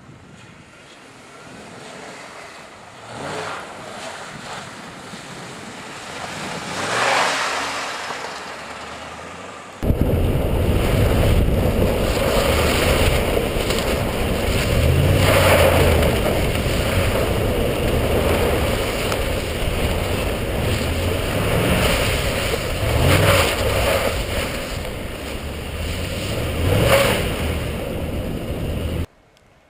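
A 2010 Ford F-150's V8 engine revs rising and falling as the pickup slides and drifts on snow-covered ice, at first heard from afar. About ten seconds in the sound jumps to close range, from a microphone on the truck's body beside the rear wheel, where repeated revs rise every few seconds over heavy wind buffeting on the microphone.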